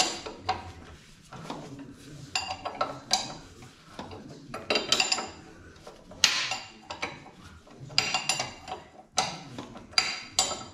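Metal wrench and tools clinking and clicking against the steel castle nut and ball joint of a Chevy Nova's front suspension as the nut is worked loose. Irregular sharp metallic clinks come in clusters of several strokes.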